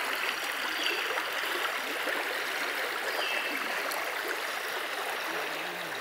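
Shallow rocky forest river rushing and splashing steadily over stones.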